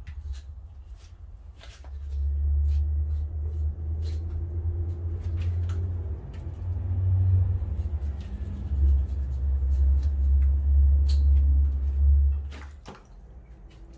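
A loud, uneven low rumble rises about two seconds in and drops away near the end, with a few light knocks and clicks over it.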